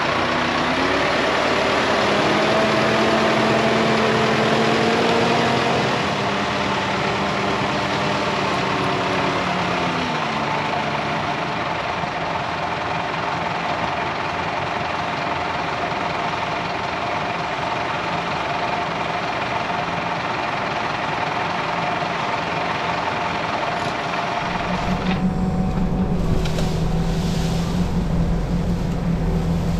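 Diesel engine of heavy working machinery running steadily, with pitched tones over the engine noise that drop in pitch about ten seconds in. About 25 seconds in the sound changes abruptly to a deeper, heavier rumble.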